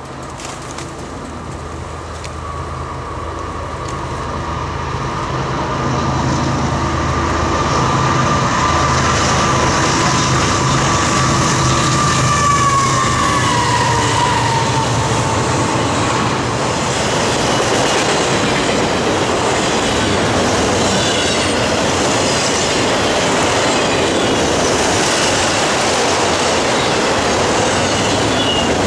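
Diesel freight locomotives, a GE ES44AC and a GMD SD60, approaching and passing. The engine drone grows louder over the first several seconds, and a high whine drops in pitch as the locomotives go by about 13 seconds in. Then comes the steady rumble of autorack cars rolling past, with wheel squeal.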